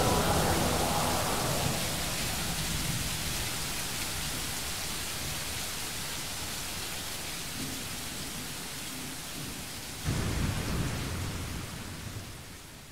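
Rain and thunder sounds closing the track: a steady rain-like hiss as the music tails off, with a low thunder rumble about ten seconds in, all fading out near the end.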